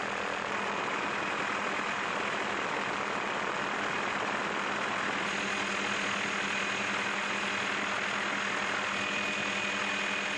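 Helicopter in flight: steady engine and rotor noise with a faint steady whine running through it.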